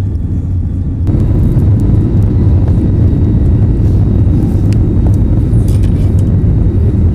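Loud, steady low rumble inside a passenger jet's cabin during take-off, growing louder about a second in, with light clicks and rattles over it.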